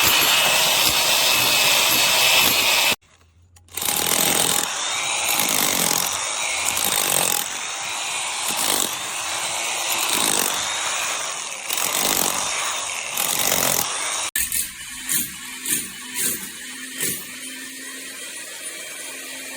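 Electric demolition hammer (VEVOR 1400 W breaker) running in several cut segments, a dense rattling hammering that surges about every second and a half as it is worked. Near the end it is quieter, with separate knocks.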